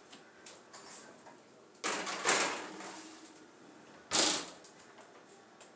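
Kitchen oven door opened with a clatter about two seconds in, then shut with a louder bang about two seconds later, as a cake pan goes into the oven.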